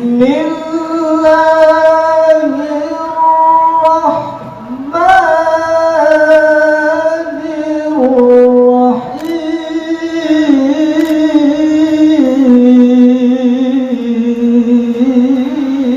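A man reciting the Qur'an in melodic tilawah style, drawing out long ornamented notes in a high register. He sings in three long phrases, with short breaths about four and nine seconds in.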